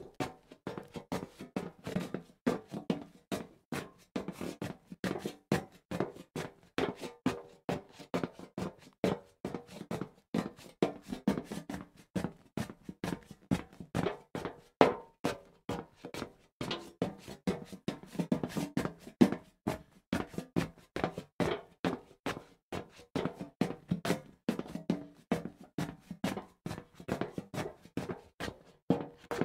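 Footsteps on a hollow metal surface: a steady walking rhythm of sharp clanks, each with a short booming ring.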